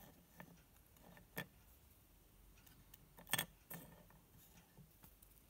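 Faint, scattered clicks and taps as a Teensy 3.2 board with metal header pins is handled, turned over and knocked against a wooden tabletop. The sharpest clicks come as a quick pair about three and a half seconds in.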